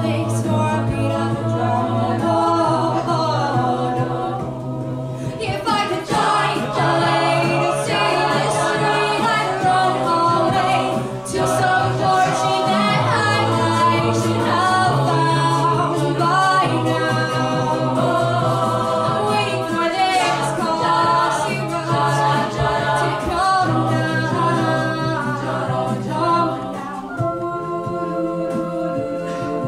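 An a cappella vocal group singing, several voices in harmony over a low sustained bass line, with no instruments.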